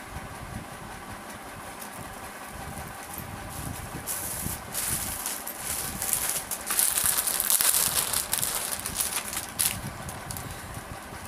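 Rustling and crinkling of a kurti being handled and unfolded, loudest in the second half and dying down near the end, over a steady low hiss.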